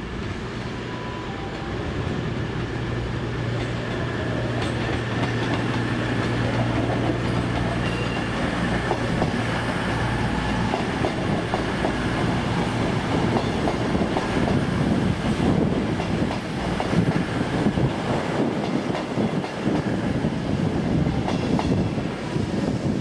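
A train moving along the track, its wheels clattering over the rails. A low steady hum stops about ten seconds in, and the clatter grows denser in the second half.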